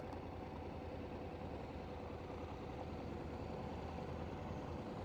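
Motorcycle engines idling, a steady low hum.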